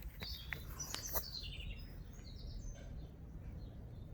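Small birds chirping in short high calls over a steady low outdoor rumble, with a few soft clicks in the first second or so.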